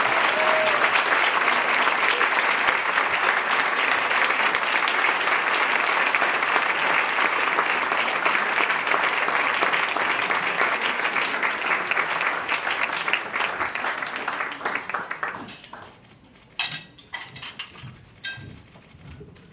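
Audience applauding steadily, then dying away about fifteen seconds in, leaving a few faint clicks.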